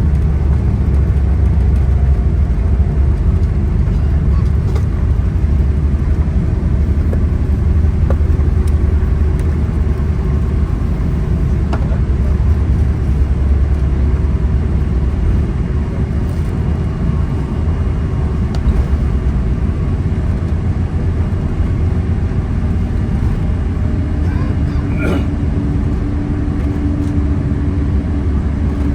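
Steady low rumble inside the cabin of a Boeing 777-300ER, from its GE90 engines and the airflow around the airliner. A steady hum joins it near the end.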